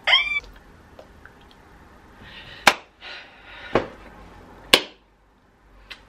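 A short high-pitched vocal squeal from a woman, then three sharp slaps or claps about a second apart, each just after a soft hiss.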